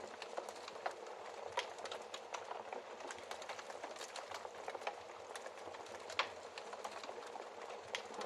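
Wood fire crackling in a fireplace: a steady soft hiss with irregular sharp pops and snaps, a louder pop about six seconds in.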